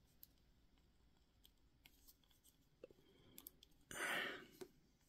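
Mostly near silence with a few faint clicks of small plastic model-kit parts being worked by hand, as the drill piece is pried and slid out of the Geo Javelin's arm. About four seconds in comes a brief, louder soft noise lasting about half a second.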